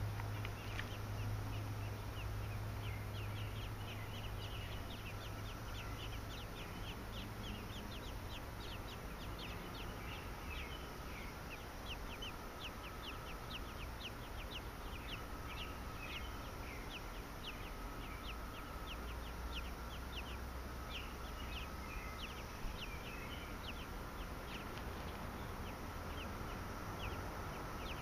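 American robin nestlings begging while a parent feeds them: a rapid, continuous string of short, thin, high peeps, several a second. A steady low hum runs underneath.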